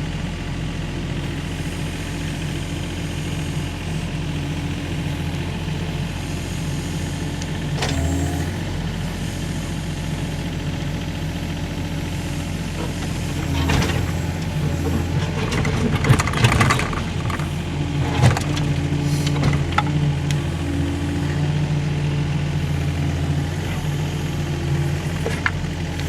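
Mini excavator's diesel engine running steadily, with a run of knocks and clatter about halfway through as it works.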